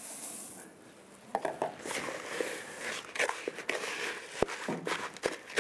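Crisp crêpe flakes poured into a plastic bowl with a light rustling hiss, then a spatula stirring them into a thick chocolate and hazelnut paste, crunching and scraping with many small clicks against the bowl.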